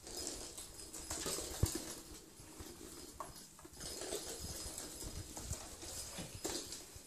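Flat microfibre mop swishing back and forth over a wood floor while ferrets scamper at it, their claws pattering and clicking on the boards. A sharp knock about one and a half seconds in.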